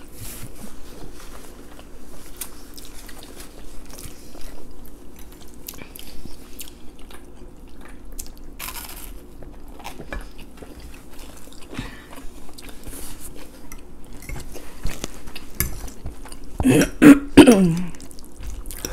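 Close-miked eating sounds: spaghetti being chewed, with small clicks of forks against plates. Near the end there is a louder sound whose pitch falls.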